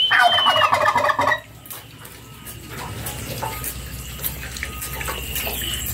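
Domestic turkey gobbling once: a rapid rattling call of about a second and a half at the start, followed by only a faint background.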